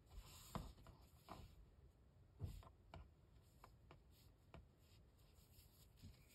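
Near silence, with a few faint, irregular soft ticks and rustles of fingers handling and knotting embroidery floss.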